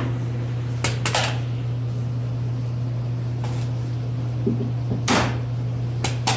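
Staple gun firing staples through pool-table felt into the wood: sharp snaps, two about a second in and three more near the end, over a steady low hum.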